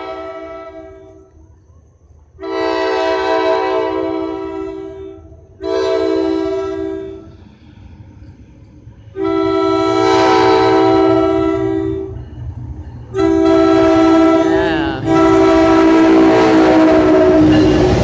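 NJ Transit locomotive's multi-chime air horn sounding a series of blasts as the train approaches, mostly long with one short one, the last held on as the train arrives. Wheel and engine rumble of the passing train rises under the horn over the last few seconds.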